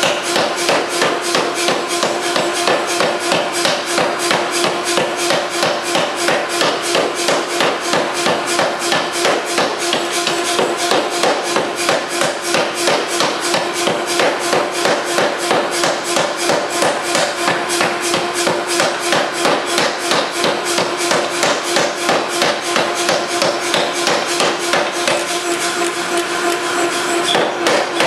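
3B Nazel self-contained air forging hammer pounding a red-hot stainless steel billet, a fast, even run of heavy blows at about three to four a second, with a steady hum underneath.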